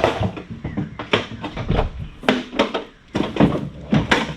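A string of irregular knocks and clunks, about ten in four seconds, each ringing briefly: tools, most likely the chainsaw and the sharpener, being handled and set down.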